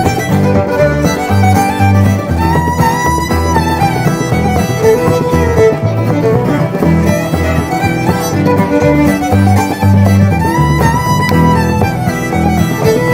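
Background music: an up-tempo fiddle tune with guitar and a steady beat, in a bluegrass style.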